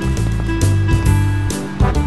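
Background music: plucked guitar over a bass line that changes note about every half second, with regular sharp beats.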